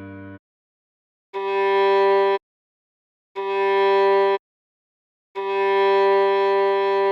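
Viola playing the same note three times, slowly, each note held about a second with a second of silence between. Each note starts and stops cleanly.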